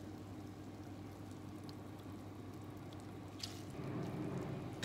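Wet shredded vegetables being squeezed by hand over a bowl to press the water out: soft squishing with water dripping back into the bowl, loudest near the end, over a steady low hum.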